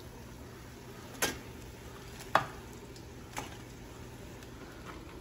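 Blue crabs being laid into a stainless steel stock pot, their shells knocking against the metal about once a second, three knocks in all, the middle one loudest with a short ring. Under them a faint steady hiss from the steaming pot.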